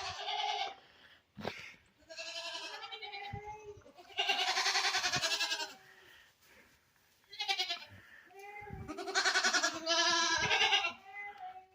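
Goats bleating: about five wavering bleats, two of them long.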